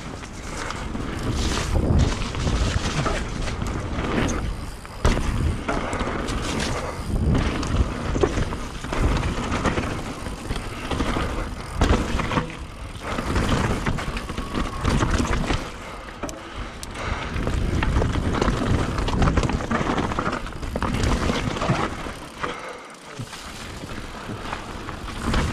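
Mountain bike ridden downhill on a wet dirt woodland trail: tyres rolling over soil and roots, with many sharp knocks and rattles as the bike hits bumps, and a brief lull near the end.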